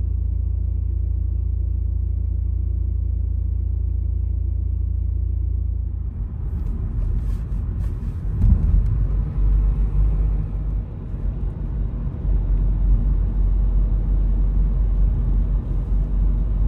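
Low rumble inside a car: a steady hum for the first six seconds, then rougher road and tyre noise as the car drives along, swelling about eight seconds in.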